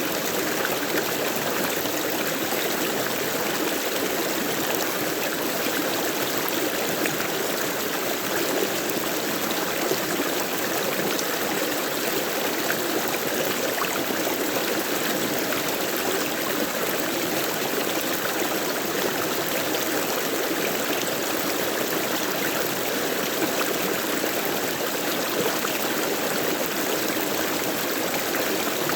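Flowing water: a stream running steadily, with a constant even rush and trickle.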